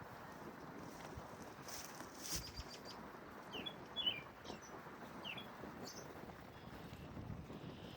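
Wild birds chirping: a few short, falling chirps about halfway through, over a faint steady hiss. A brief noisy burst comes a little after two seconds in.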